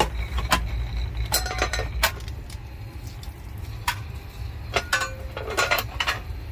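A string of sharp metal clicks and clinks as the hinged cover of a pull-out AC disconnect box is opened and the disconnect inside is handled, over a low steady hum that drops away about two seconds in.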